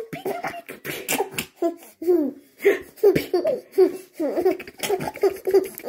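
A baby laughing in a run of short, rhythmic bursts, about three a second, with a woman laughing along.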